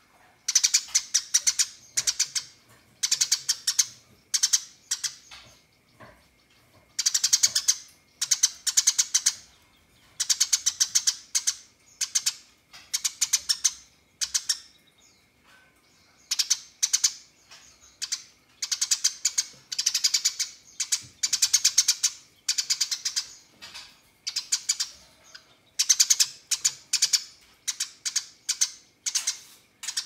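Eurasian tree sparrow chattering: short bursts of rapid chirps in quick succession, about one burst a second, with brief pauses between them.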